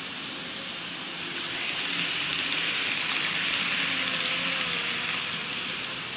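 N-gauge model trains running on the track: a hissing rattle of wheels on the rails with a faint motor whine. It grows louder about a second in and eases near the end as a train passes close by.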